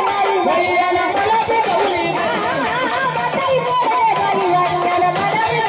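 Live Marathi gondhal folk music: a woman singing a gavlan, her voice wavering in pitch, over drums played with sticks and jingling percussion.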